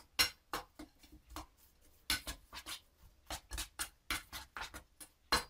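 A utensil stirring a thick chocolate, nut and coconut mixture in a stainless steel bowl, scraping and clicking against the metal in short, irregular strokes, about three a second.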